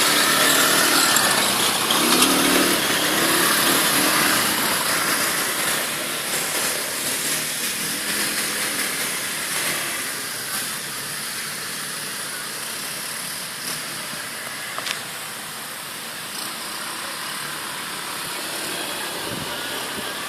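ATV engine running, loudest in the first few seconds and growing quieter over the second half.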